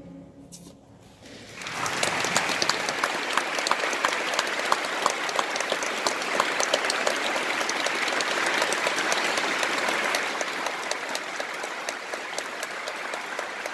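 The choir's final chord fades away, then audience applause breaks out about a second and a half in and carries on steadily.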